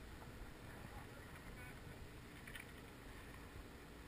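Faint steady wind and water noise on the open sea, with a few brief, faint, pitched calls about a second in and again about two and a half seconds in.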